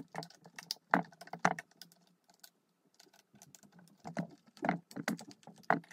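Irregular light clicks and taps of a small screwdriver and fingers on a DJI Mavic Mini drone's plastic body as the tiny screws holding its top cover are undone, quieter for a moment near the middle.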